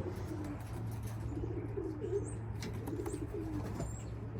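Racing pigeons cooing, about three low warbling coos in turn, over a steady low hum.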